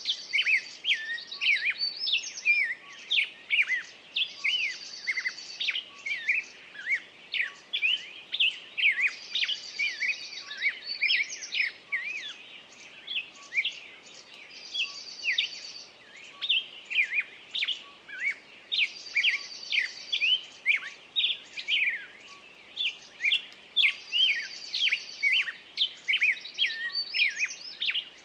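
Small songbirds chirping and calling continuously, with a quick high trill that comes back about every five seconds.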